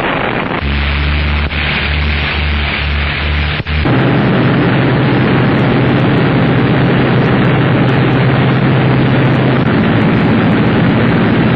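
Three-engined Blackburn Perth flying boat's engines running at take-off power, a loud rushing roar over a low drone that pulses for the first few seconds and then holds steady.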